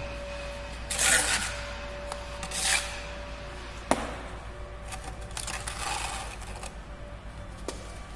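A bricklaying tool scraping short strokes over mortar joints and brick as the joints are run in, with one sharp tap about halfway through.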